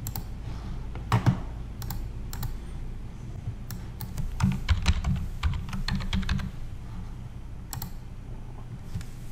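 Computer keyboard typing as a password is re-entered: scattered key clicks, with a quicker run of keystrokes around the middle.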